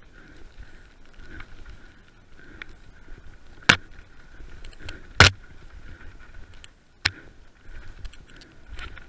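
Mountain bike rattling and clattering down a rough forest trail, with a faint steady buzz. Three sharp knocks come from hard hits on the rough ground, the second the loudest.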